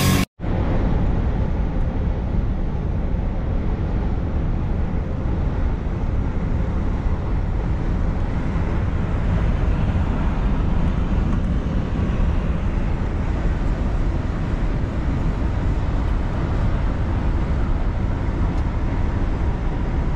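Steady engine drone and tyre and road noise inside the cab of a Scania V8 lorry driving along a motorway.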